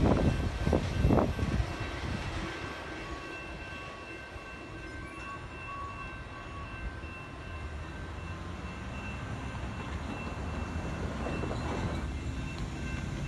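Train rolling away down the track: a few heavy clanks from the wheels in the first second or so, then a low rumble that fades as it recedes, with faint steady high-pitched tones over it.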